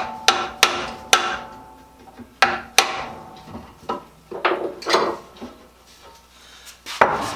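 Sharp, ringing taps of a chisel knocking loose a jigsaw blade that the wood has closed up around, in short groups with pauses between.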